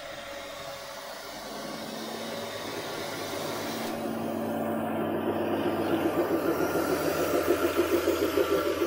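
Narrow-gauge ZDM-class diesel locomotive running slowly past at close range, its engine growing steadily louder as it nears, with a fast pulsing beat in the last few seconds.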